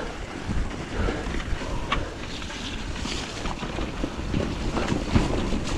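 Wind buffeting the microphone and tyres rolling over wet dirt as a hardtail mountain bike is ridden down a forest trail, with a few short knocks from the bike over bumps.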